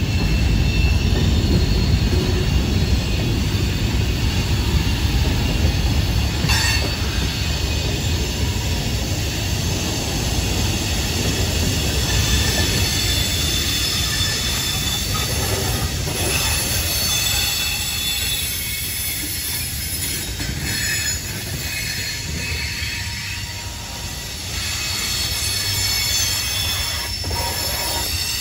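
Freight cars rolling past on the rails: a steady low rumble of wheels with a thin, high wheel squeal running over it and a few clanks. The rumble eases slightly after the middle.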